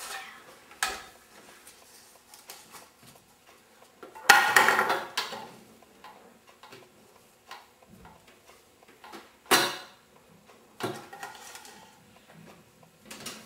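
Kitchen clatter of pans and utensils being handled: a few separate sharp clanks, the loudest about four seconds in ringing on briefly.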